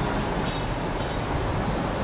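Steady background noise with a low rumble, even throughout, with no distinct clicks or events.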